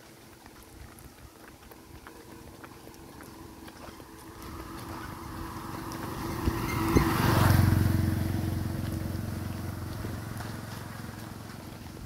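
Motorcycle engine approaching, passing close by about seven seconds in, then fading away as it rides off.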